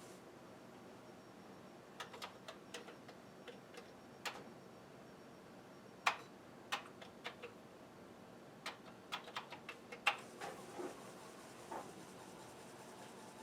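Irregular sharp clicks and taps, around two dozen in all, coming in short clusters, from handling a Commodore 64 and its 1541 floppy disk drive while a new disk is set up to load.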